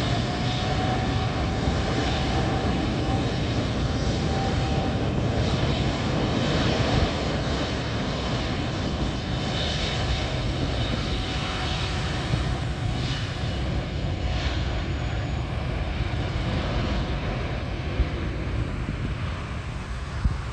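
Jet airliner's engines running close by: a steady deep rumble, with a whine that rises slightly at the start, holds for a few seconds and then fades into the rumble. The sound eases off slowly near the end.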